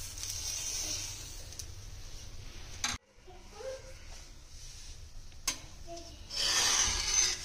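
Kitchen sounds of dosa-making: a spoon or ladle scraping and stirring through rava dosa batter, with a sizzling hiss. The sound breaks off abruptly about three seconds in, and a louder rasping hiss comes near the end.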